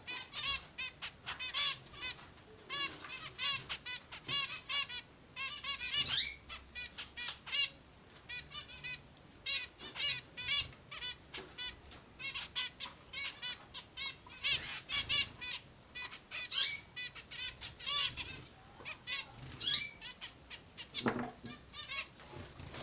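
Zebra finch chicks begging, a dense run of short high-pitched calls repeated several times a second, with a few louder rising calls mixed in.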